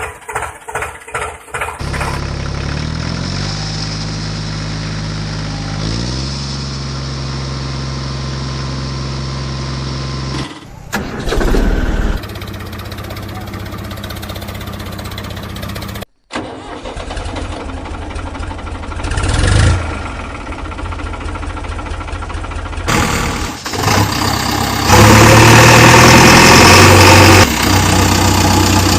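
A vehicle engine cranks and catches with rapid sputtering, then runs steadily, its note stepping up and down in pitch. It revs briefly and runs on louder near the end, in several pieces cut together.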